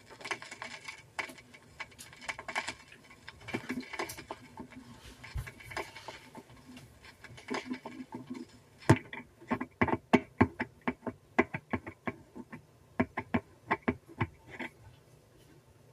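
Irregular sharp clicks and light taps, scattered at first, then louder and coming two or three a second from about nine seconds in: handling and needle noises from a turntable and vinyl record between tracks.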